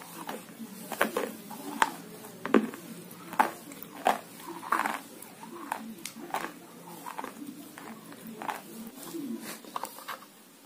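Close-up chewing of crunchy roasted nakumatt chunks: irregular sharp crunches and wet mouth sounds, louder in the first half and sparser toward the end.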